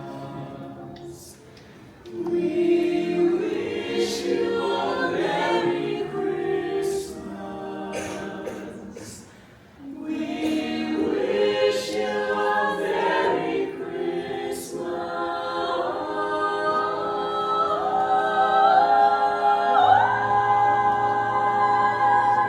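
Mixed a cappella vocal ensemble singing a holiday song in close harmony, ending on a long held chord that swells and rises in pitch near the end.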